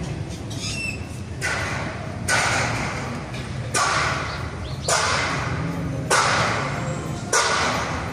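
Flock of birds squawking in the tree canopy, in repeated loud bursts a second or so apart that each start suddenly and fade away.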